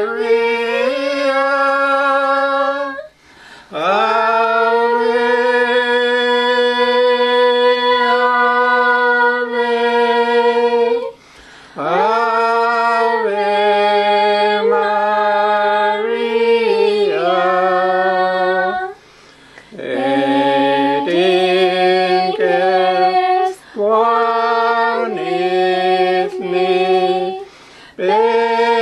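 Unaccompanied singing of a hymn in the Dakelh (Carrier) language, slow phrases of long held notes with short breaths between them.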